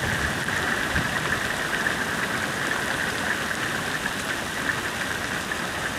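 Heavy rain mixed with hail falling on the ground and the forest around, a steady dense patter.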